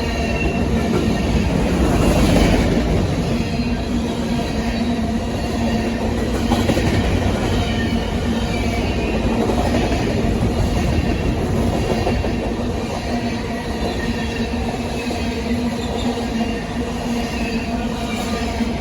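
Grain cars of a freight train rolling past at speed: a steady rumble and clatter of wheels on the rails, with a faint steady whine.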